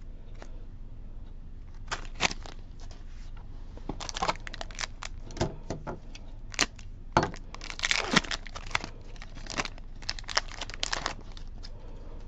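Foil wrapper of a Pokémon Fusion Strike booster pack crinkling and being torn open by hand: a run of crackles and tearing, thickest about eight seconds in.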